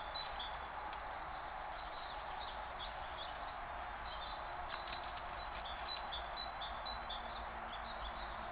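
Small birds chirping in short, repeated calls over the steady hiss of a wildlife camera's microphone.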